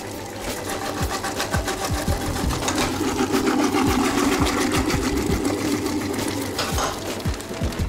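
Electric vegetable cutter running, its motor whirring with a rapid, even clatter as peeled onions are pushed through and chopped; it grows louder in the middle as the onions go through the blades.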